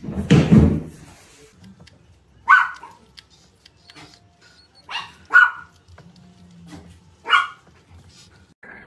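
A dog barking in four short, sharp barks, two of them close together in the middle, after a loud, noisy sound in the first second.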